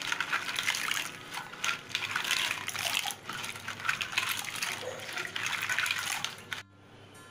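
Hands washing clams in a metal pot of water: splashing and sloshing, with shells clacking against each other. The sound stops abruptly about six and a half seconds in.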